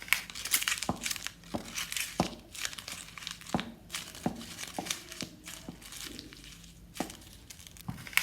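Something being crumpled and crinkled, with irregular sharp crackles and bursts of rustling throughout, as in a hand-made Foley effect.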